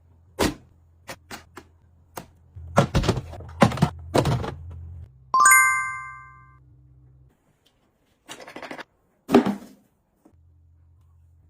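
Small hard objects being handled and set down: a run of light taps and knocks, then a bright ringing clink that fades over about a second, and two more knocks a few seconds later.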